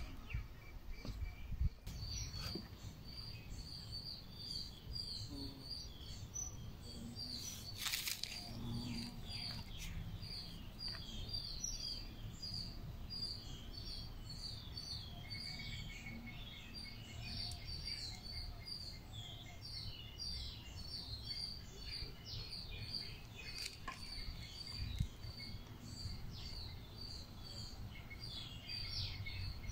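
Small birds chirping, many short quick calls repeating throughout over a low background rumble, with a brief noise about eight seconds in.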